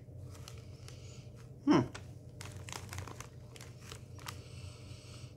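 Crisp snack bag crinkling as it is handled and held to the face, with a short falling grunt-like vocal sound about two seconds in and a steady sniff into the bag near the end.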